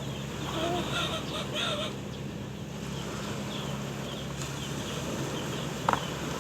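Birds calling: a few short, curving calls in the first two seconds, over steady high chirping, with a steady low hum underneath and a single sharp click near the end.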